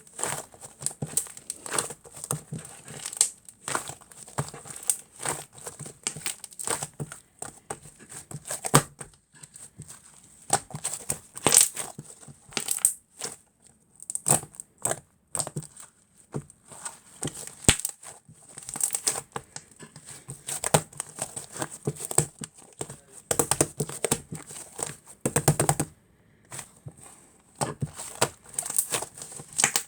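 Fluffy liquid-clay slime being squished and poked by hand, giving a run of irregular sticky clicks and crackly pops.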